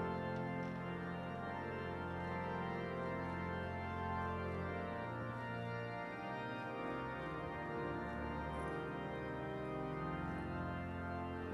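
Pipe organ playing slow sustained chords, the bass notes changing about five and seven seconds in.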